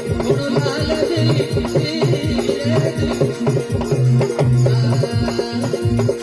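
Instrumental passage of a Rajasthani folk bhajan: a steady hand-drum beat with rattling percussion under held, droning melody tones.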